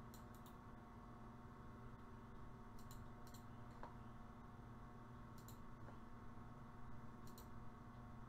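Faint clicks of a computer mouse, mostly in pairs, coming every couple of seconds over a low steady hum.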